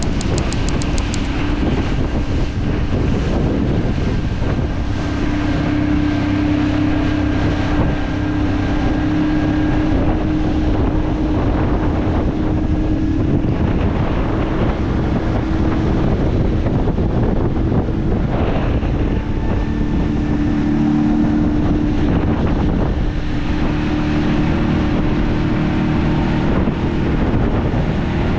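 A boat's outboard motor running steadily under way, its pitch shifting a little now and then, with wind rushing over the microphone.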